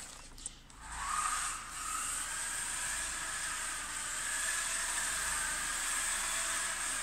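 Electric motor and gearbox of a WLtoys 12428 RC truck whining as it drives, coming up about a second in and then running steadily, with a high hiss above the whine.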